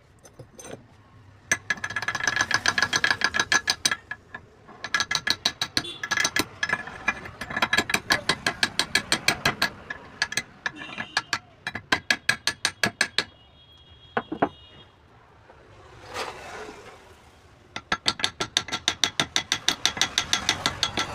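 Rapid ratcheting clicks, about ten a second, in four runs of a few seconds each, with a brief high squeak and a rustle between the third and fourth runs.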